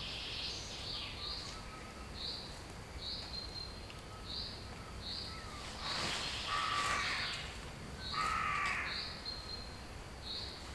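Woodland birds: a small bird repeating a short high note about once a second, and two louder, rasping calls, crow-like, about six and eight seconds in.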